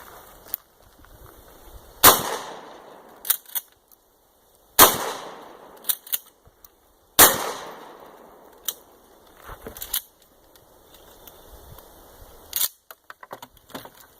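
Pump-action shotgun fired three times, about two and a half seconds apart, each shot ringing out. Between the shots come quick pairs of clicks, the pump being worked to chamber the next shell.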